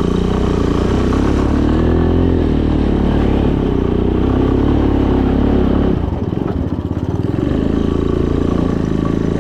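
Small three-wheeler's engine running under throttle, its pitch rising and falling, then easing off about six seconds in.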